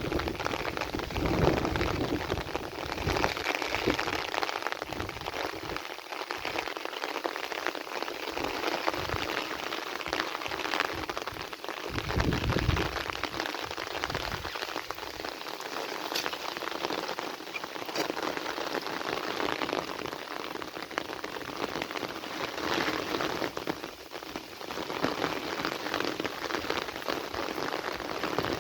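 Heavy rain falling steadily onto a surface, a dense even hiss of drops, with short bursts of low rumble now and then.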